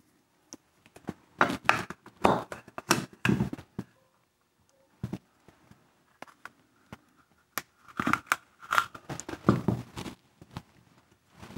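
Giant rubber bands being stretched and wrapped around a two-part plaster mold: rubbing and scraping handling noise in two spells, with a few sharp clicks in between.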